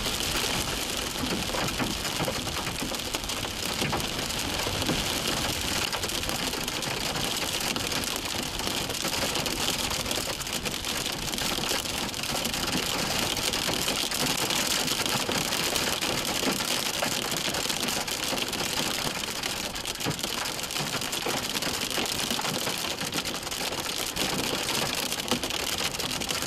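Heavy hail falling: a dense, steady clatter of countless hailstones striking.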